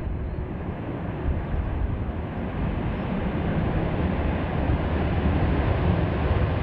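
Jet engines of an Airbus A350-900, its Rolls-Royce Trent XWB turbofans, running as the airliner rolls along the runway. A steady low rumble that grows slightly louder toward the end.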